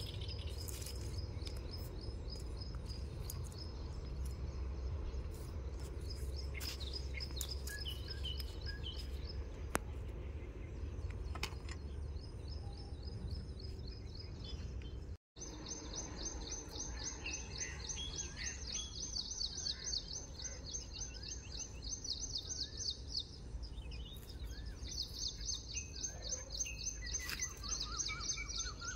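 Morning chorus of small birds: long fast trills of high repeated notes and shorter whistled calls, over a steady low rumble. The sound breaks off for a moment about halfway through.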